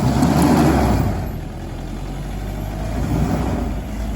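Four-wheel drive's engine revving hard under load as it climbs a slippery track. It surges loudest in the first second, settles, then rises again about three seconds in.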